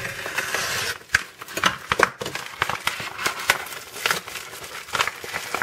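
A postal parcel's packaging being opened by hand: a steady tearing rustle for about the first second, then a run of sharp, irregular crinkles and crackles as the wrapping is handled.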